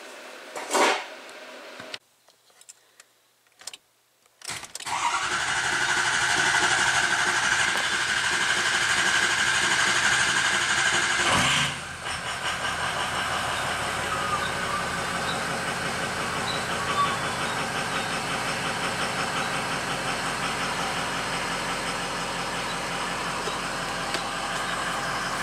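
A short loud knock, then, a few seconds in, a Ford 6.0 Powerstroke V8 diesel cranked on the starter with a steady whine for about seven seconds after fresh injector work. It catches and settles into idle.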